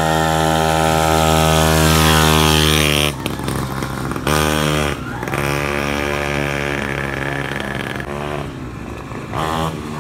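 50cc mini ATV engine revving high and steady, then dropping off about three seconds in. It is revved up again in a short burst, held for a few seconds, eased off, and given one more quick rev near the end.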